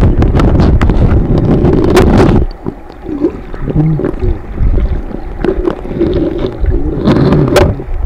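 Stream water heard by a submerged camera: a loud muffled rush with bubbling and gurgling, broken by sharp clicks and knocks. The rush eases about two and a half seconds in and swells again near the end.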